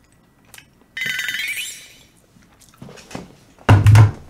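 A short ringing chime sound effect about a second in, then near the end a quick run of loud hand claps.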